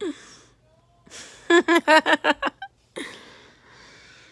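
A person laughing in a quick run of about six short bursts, with breathy gasps before and after.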